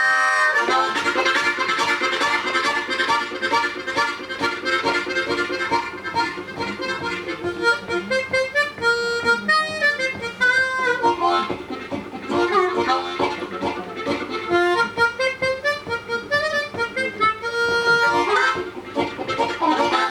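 Harmonica playing a train imitation: fast, rhythmic chugging chords, with some bent, wailing notes around the middle.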